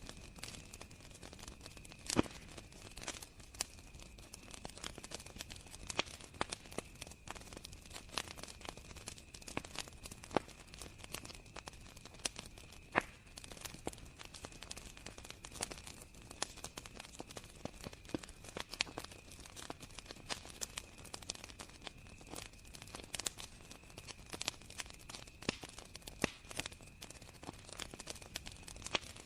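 Campfire crackling, with irregular sharp pops and snaps, over a steady high chirring of crickets.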